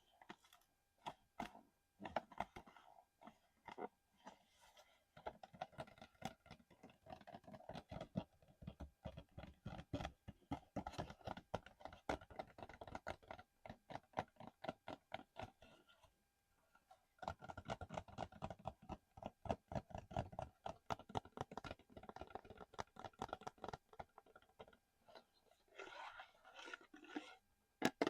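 Rapid tapping and scratching on a small hard object by hand: long runs of quick, crisp taps with a short pause about two-thirds of the way through.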